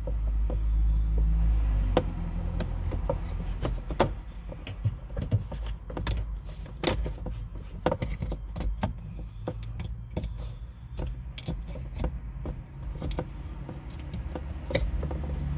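Scattered clicks, taps and rattles of plastic wiring connectors and harness being handled and plugged in under a van's dashboard, over a low rumble that is loudest for the first two seconds.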